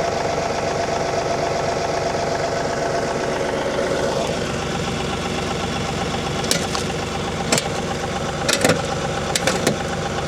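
Tractor engine running steadily. From about six and a half seconds in, a series of sharp knocks and clanks comes from the planter's drive mechanism binding up as it is engaged.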